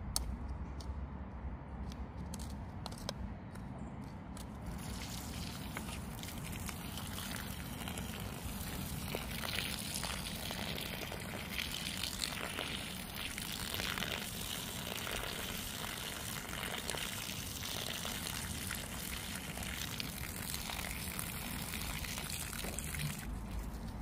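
Water running from a garden hose onto loose soil, watering in freshly transplanted seedlings: a steady splashing hiss that starts about five seconds in and stops just before the end. A few light clicks come before it.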